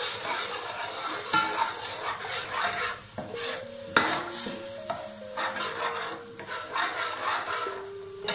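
Metal slotted spatula stirring and scraping yogurt through hot oil in an aluminium pot, the mixture sizzling as it fries with browned onion and ginger-garlic paste. A few sharp clinks of metal on the pot, the loudest about four seconds in.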